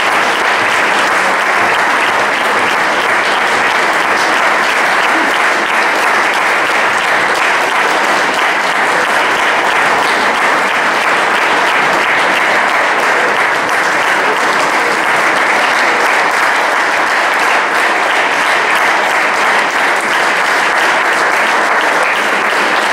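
Concert audience applauding steadily, a dense unbroken wash of clapping.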